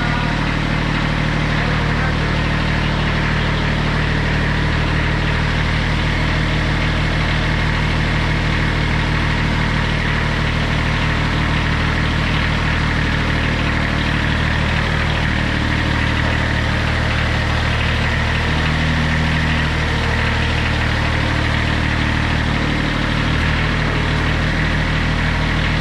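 Kubota B7200 compact tractor's three-cylinder diesel engine running steadily at a constant speed.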